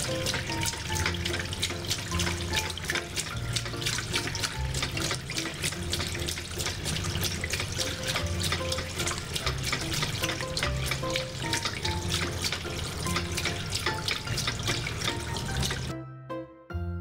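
Water running from a tap in a thin steady stream, with background music over it. The water sound cuts off suddenly near the end, leaving only the music.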